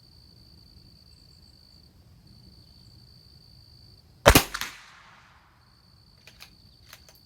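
A single .22LR rifle shot from a Christensen Arms Ranger, sharp with a short echoing tail, about four seconds in. A few light clicks follow near the end as the bolt is worked, over a steady high cricket trill.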